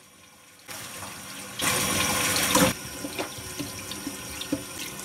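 Tap water running into a sink, picking up about a second in and loudest for about a second near the middle, with small knocks and clicks over it.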